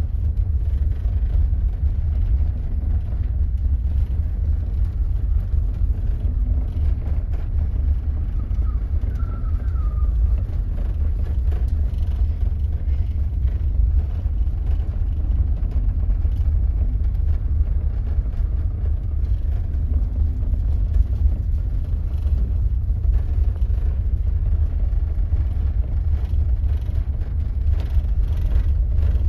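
Storm-force wind buffeting the microphone on a ferry's open deck at sea: a steady, heavy low rumble that flutters constantly, with no break.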